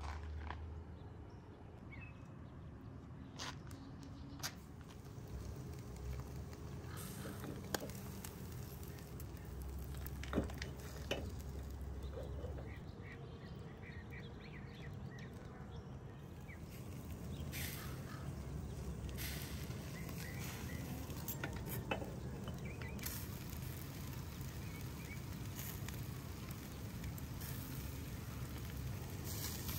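Scattered metal clinks of a hinged wire grill basket being handled over a charcoal fire pit, over a steady low hum. A few short bird calls come through about halfway.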